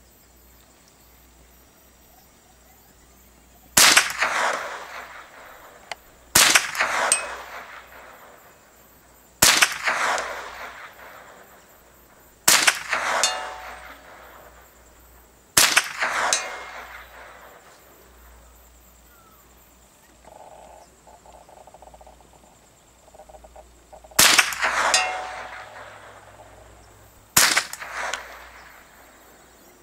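A scoped rifle fired seven times at a steady pace of about one shot every three seconds, with a longer pause after the fifth shot. Each sharp report trails off over about a second.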